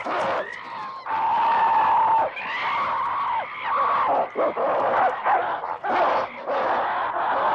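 Ape-like screams and screeching cries made from chimpanzee and baboon calls. A long held scream starts about a second in, followed by a near-continuous run of rising and falling shrieks.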